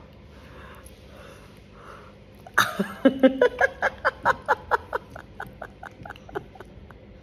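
A toddler and a woman laughing together. The laughter starts suddenly about two and a half seconds in as a quick run of ha-ha pulses, about five a second, and tails off near the end.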